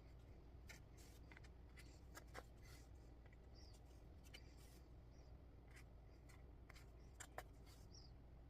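Near silence with faint handwork sounds: a needle and thread drawn through cross-stitch canvas, making scattered small clicks and rustles. Two slightly louder ticks come about two and a half seconds in and again near seven seconds.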